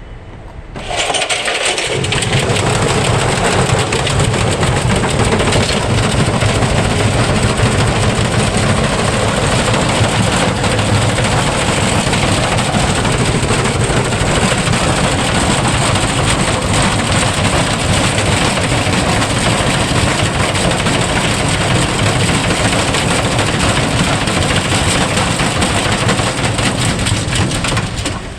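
Electrolux front-load washing machine in a violent high-speed spin, the drum running with a loud, dense rattling and clattering as the machine shakes itself apart. It comes up fast about a second in, holds steady, and drops away near the end.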